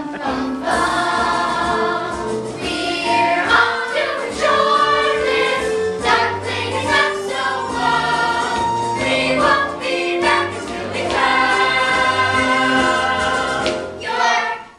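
A young stage cast singing together as a chorus over a musical accompaniment, with held, sustained notes; the number trails off just before the end.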